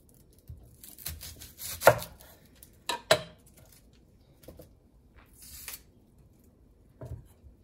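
Chef's knife cutting an onion on a wooden cutting board: a few separate knocks and cuts, the loudest about two seconds in, with a short rustle a little past the middle.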